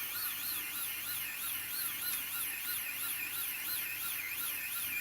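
Small motors of a 3D-printer filament feeder running to drive filament through, a steady high whine whose pitch wobbles up and down about four times a second.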